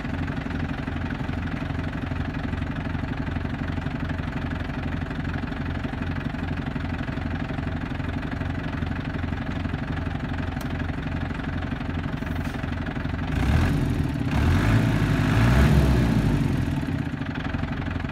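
Four-cylinder diesel engine of a 1999 Iveco-Ford 75E14 7.5-tonne lorry idling with a steady, even beat. Near the end it rises in pitch and loudness for a few seconds, then settles back to idle.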